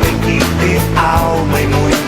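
Band music: a full rock-style arrangement with a steady drum beat under sustained bass and melodic lines.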